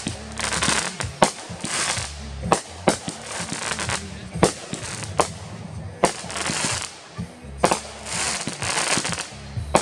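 Consumer aerial fireworks bursting overhead: irregular sharp bangs as shells and cake shots break, with stretches of crackling hiss from crackling stars between them.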